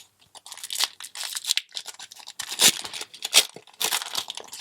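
A foil Magic: The Gathering booster pack wrapper being torn open and crinkled by hand, a run of irregular crackling tears, loudest a little past the middle.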